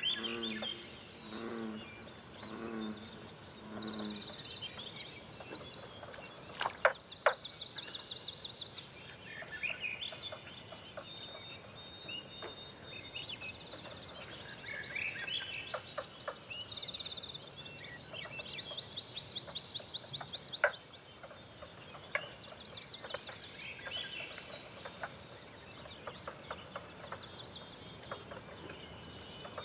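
Several wild birds singing: assorted chirps and whistles, with fast buzzy trills twice. In the first few seconds there is a row of five low, evenly spaced notes.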